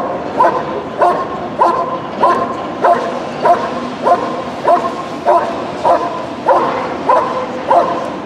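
German Shepherd barking steadily at a helper in the blind, about two barks a second in an even rhythm: the continuous hold-and-bark of Schutzhund protection work.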